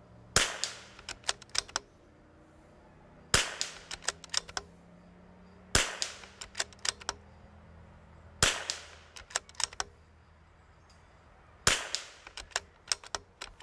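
Five 22 LR rifle shots from a Vudoo Gun Works bolt-action rifle, spaced about two and a half to three seconds apart. Each shot is followed by a quick run of sharp clicks as the bolt is worked to chamber the next round.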